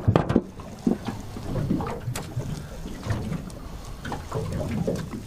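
Water slapping against the hull of a small aluminium fishing boat, with a few sharp knocks in the first half-second.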